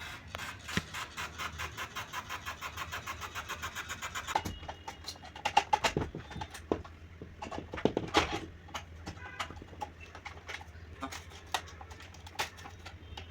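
Rapid, even mechanical ticking that stops abruptly about four and a half seconds in, followed by scattered sharp clicks and knocks over a steady low hum.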